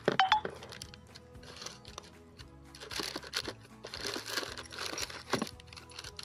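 Background music over the crinkling of a black plastic pouch being rummaged for batteries, with a few sharp clicks near the start.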